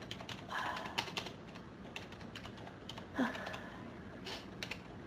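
Rapid, irregular light clicks and taps, with two short breathy sounds about half a second in and about three seconds in.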